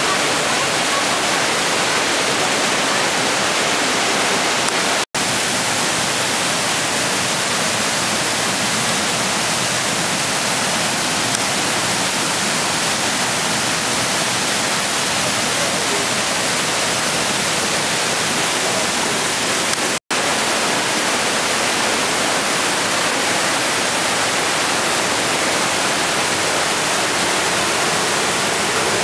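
Hammersbach mountain torrent rushing through a narrow gorge: a steady, loud roar of white water. The sound cuts out twice for an instant.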